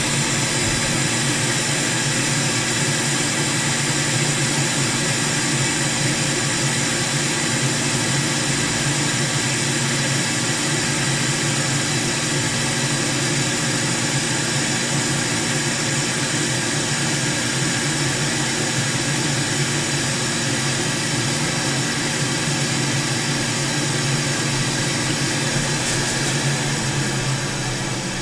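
A small electric blower fan on a soldering workbench running steadily with a whirring hum and airy hiss, winding down near the end.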